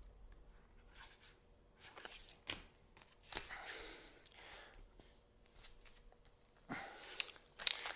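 Faint rustling and light taps of trading cards being handled and slid over one another, in a few short patches.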